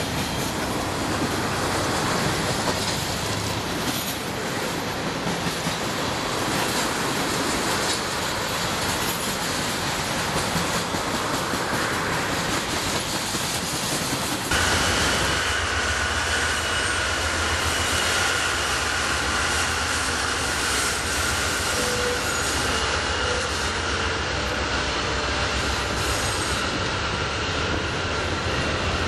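Freight train cars rolling past on the rails with a steady rush of wheel noise. About halfway the sound changes abruptly to a heavier low rumble with a steady high-pitched wheel squeal over it.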